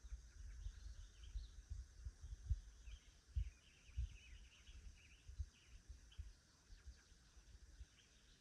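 Faint outdoor ambience: scattered short, high bird chirps, densest in the middle, over irregular low rumbling bumps.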